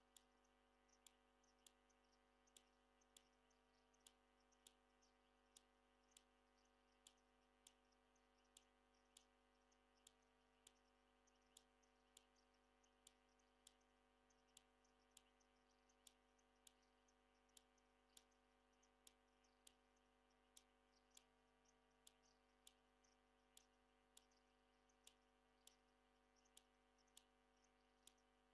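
Near silence: a faint sharp click repeats about every 0.7 seconds over a low steady hum, with faint high chirps scattered between.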